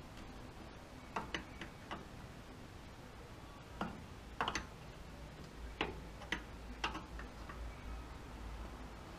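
Scattered, irregular metal clicks of a 14 mm wrench being set on and worked around the brake line flare nut at a rear drum-brake wheel cylinder. The wrench fits the new cylinder's fitting loosely.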